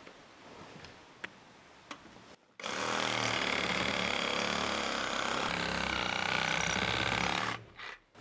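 Cordless circular saw running steadily for about five seconds as it cuts into a 6x6 wooden post, starting about two and a half seconds in and cutting off suddenly near the end. Its pitch sags slightly under load partway through. A few faint clicks come before it starts.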